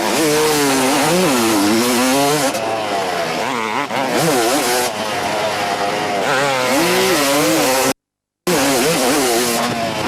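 Kawasaki KX250 single-cylinder two-stroke motocross engine revving hard, its pitch climbing and dropping again and again as the throttle opens and closes. The sound cuts out completely for about half a second near the end.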